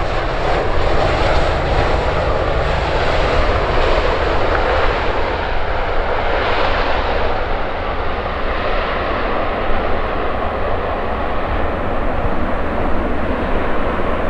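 Jet noise from an Embraer E190's twin GE CF34 turbofan engines, loud and steady with a deep rumble underneath; the high hiss dulls about halfway through.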